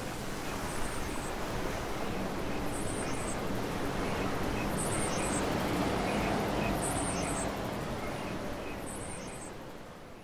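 Seaside ambience: a steady rush of surf and wind, with a small bird's high chirps about every two seconds, fading out near the end.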